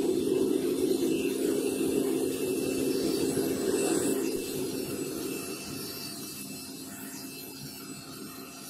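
Gas burner of a small crucible furnace running with a steady rushing noise and a low hum, fading down from about four and a half seconds in.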